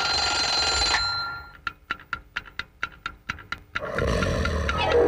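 Mechanical alarm clock bell ringing loudly, then cutting off about a second in; a run of rapid clicks, about six a second, follows for a couple of seconds. Near the end a rushing noise with a falling tone leads into organ music.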